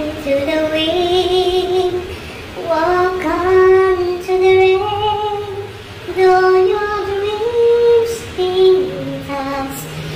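A woman singing a slow melody with long held notes and a slight waver in the voice.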